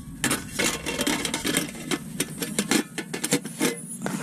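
Cookware and utensils being handled and set down: a quick, irregular run of light clinks, clicks and knocks.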